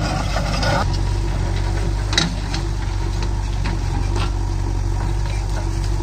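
Diesel engines of a Swaraj 744 FE tractor and a JCB backhoe loader running steadily at idle. Loose stones clatter as they settle in the trolley in the first second, and there is a single sharp knock about two seconds in.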